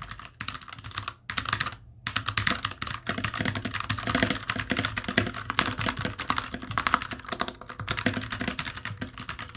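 Keyboard space bar being pressed over and over for a sound test: a few scattered clicks in the first two seconds, then fast, continuous clicking.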